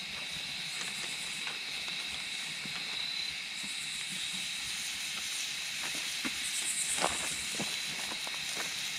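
Campfire burning: a steady hiss with scattered crackles and pops, coming thickest about two-thirds of the way through.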